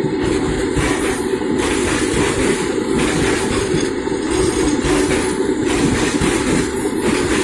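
Indian Railways train running on the track, a steady rumble whose upper hiss rises and falls every second or so.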